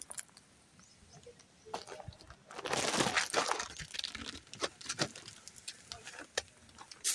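Footsteps crunching and scuffing on rocky, gravelly ground, with a louder stretch of scraping a little before halfway through.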